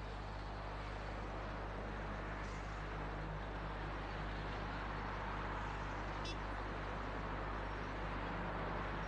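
Faint, steady background noise over a low hum, with one brief faint tick about six seconds in.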